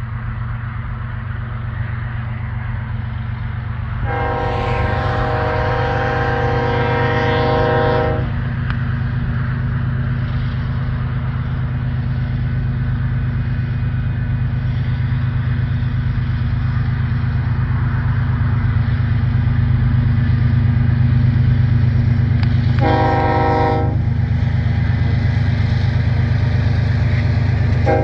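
Union Pacific diesel freight locomotive sounding its multi-note air horn as it approaches: one long blast of about four seconds, then a short blast about fifteen seconds later. A steady low rumble runs beneath and grows louder as the train nears.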